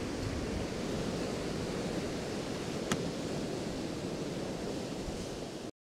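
Heavy surf breaking and washing up the beach, a steady rushing wash of waves, with one faint click about three seconds in; the sound cuts off abruptly just before the end.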